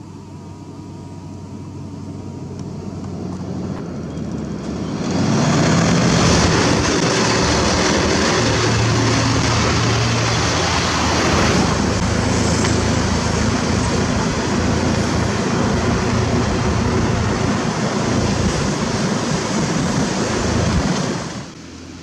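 Diesel self-loader trucks hauling excavators on a road: an engine drone grows louder over the first five seconds, then a louder, steady rush of engine and road noise takes over and cuts off abruptly about a second before the end.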